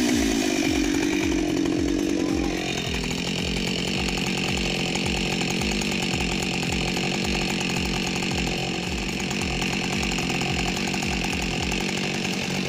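Chainsaw running hard, cutting into a large tree stump, its pitch dipping in the first couple of seconds as it bites and then holding steady.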